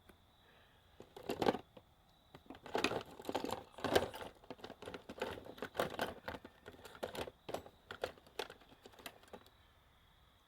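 Rummaging through a box: an irregular run of clicks, clatters and rustling as small hard items are handled and knocked together, stopping near the end.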